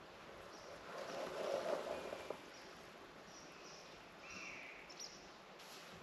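Faint outdoor woodland ambience with small birds chirping now and then. A swell of noise rises and falls about a second in.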